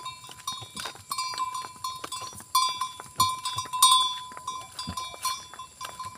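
Cow-drawn wooden cart rolling along an asphalt road: an uneven run of knocks and clatter from the cart and hooves, with a thin high ringing tone that pulses along with them.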